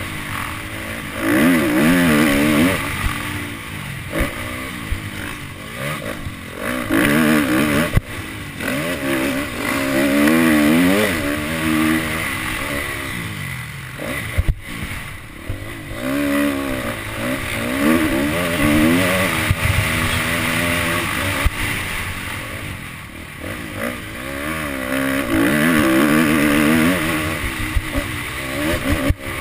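Motocross dirt bike engine being ridden hard, its pitch rising and falling over and over as the rider opens and shuts the throttle through corners and straights, recorded from the rider's helmet. Short knocks are scattered through it.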